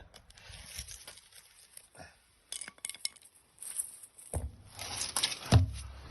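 A metal tool clinking and scraping against a drain, with two heavier knocks a little past the middle and near the end.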